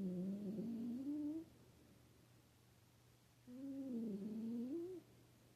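Domestic cat snoring: two drawn-out snores about three and a half seconds apart, each a wavering tone that rises at the end.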